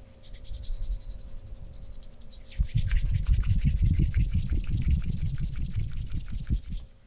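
Hands rubbing briskly back and forth over skin or clothing in a fast rasping massage stroke, about eight strokes a second. It starts lighter, turns much harder and heavier about two and a half seconds in, and stops just before the end.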